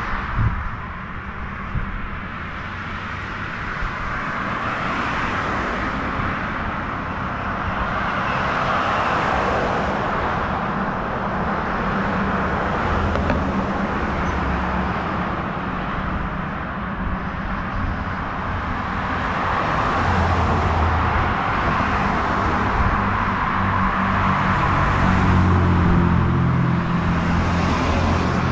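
Street traffic: cars passing one after another, the tyre and engine noise swelling and fading every few seconds over a low rumble.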